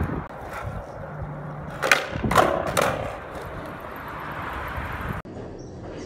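Skateboard on concrete: three sharp clacks of the board striking the ground, about two seconds in and close together, over a steady background rush.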